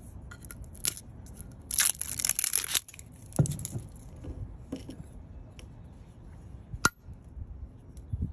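A jar of salted shrimp paste being opened and handled: a short tearing rustle about two seconds in, likely its seal coming off, with scattered sharp clicks and light taps of the jar and lid and a metal spoon against a ceramic bowl.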